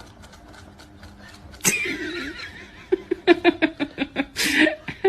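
A sudden high, wavering cry about a second and a half in, followed by a rapid run of short laughing pulses, about four or five a second.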